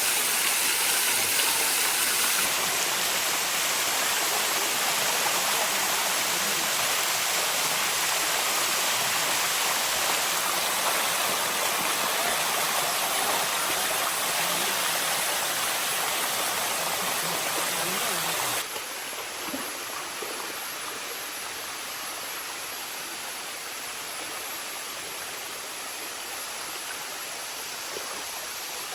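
Water rushing down a waterfall's cascades: a steady rush that drops suddenly quieter about two-thirds of the way through.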